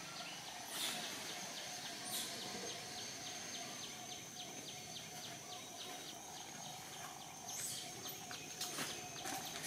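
Outdoor wildlife ambience: a steady high insect drone with a rapid ticking call about four times a second, and a few scattered sharp clicks, more of them near the end.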